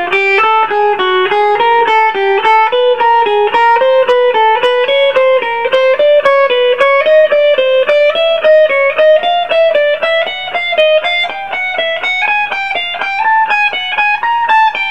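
Electric guitar playing a fast four-note finger pattern (2, 4, 3, 1) on one string in evenly spaced single notes, slid up one fret on each repeat so the line climbs steadily in pitch.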